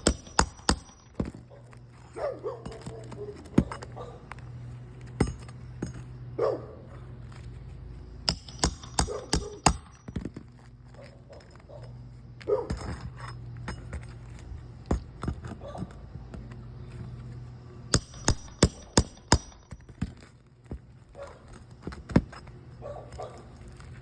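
Hammer blows on a roof, sharp knocks in quick bursts of several strikes with single knocks between, as shingle nails are worked loose with hammer and pry bar. A steady low hum runs underneath.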